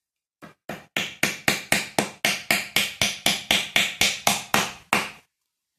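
A hammer driving a nail into a wooden broom head to fix the handle. About nineteen sharp, even strikes come at roughly four a second, starting with two lighter taps.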